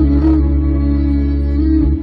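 Layered wordless vocal humming and 'aah' tones held over a deep sustained drone, sung without instruments.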